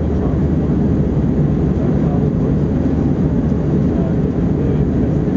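Steady low roar of an Airbus A321-231 in flight, heard inside the passenger cabin: its two IAE V2500 turbofans and the rushing airflow blend into one even drone.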